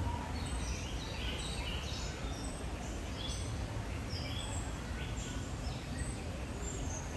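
Small birds chirping over and over in short, quick, falling notes, over a steady low background rumble.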